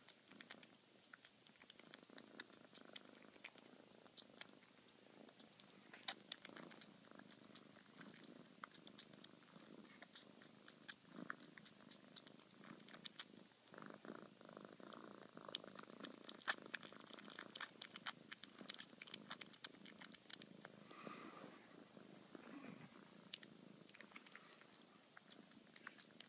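A black cat purring faintly while it sucks on a person's ear, with many small wet sucking clicks over the purr.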